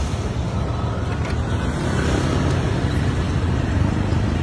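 Honda CB750 motorcycle engine idling steadily with a low, even rumble.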